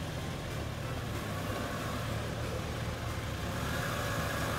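Toyota Land Cruiser Prado's engine running steadily at low revs as the lifted SUV crawls slowly over a rutted dirt trail.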